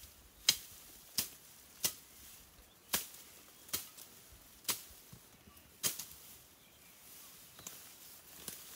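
Seven sharp knocks in a little over five seconds, coming at an uneven pace, then they stop.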